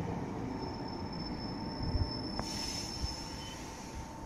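Roslagsbanan light-rail train running past the platform: a steady rumble of wheels and motors, with a thin high squeal from about half a second in to three and a half seconds, and a short hiss near the middle.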